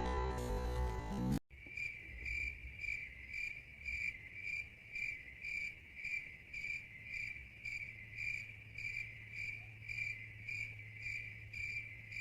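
Cricket-chirp sound effect: an even run of short, high chirps at about three a second, the stock cue for an awkward silence. Before it, in the first second and a half, background music fades and cuts off abruptly.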